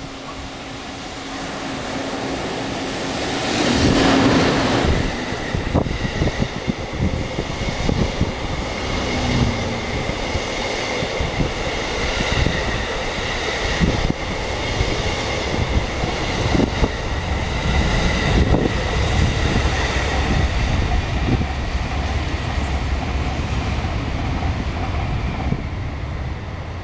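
An EF65 electric locomotive passing close by, loudest about four seconds in, followed by a string of E233-1000 series cars towed without their own power, their wheels clattering steadily over rail joints with a high whine, fading near the end.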